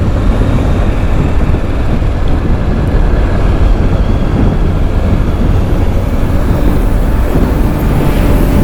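A motorcycle underway, heard from on the bike: a steady, dense rumble of engine, wind and road noise.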